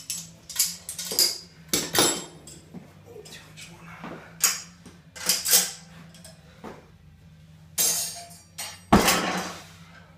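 Steel loading-pin device and its tensioner handle worked by hand, giving irregular metallic clanks and clinks, with the loudest clank about nine seconds in.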